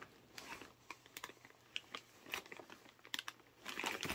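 Light scattered clicks and taps of a rebuilt SU carburettor being handled and turned over, with plastic bag crinkling near the end.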